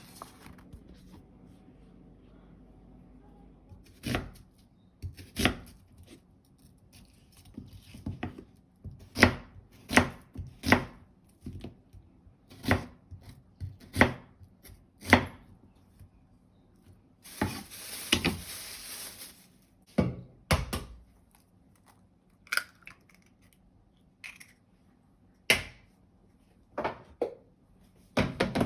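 Kitchen knife chopping on a cutting board: single sharp knocks at an uneven pace, roughly one a second. A brief hiss lasts about two seconds a little past the middle.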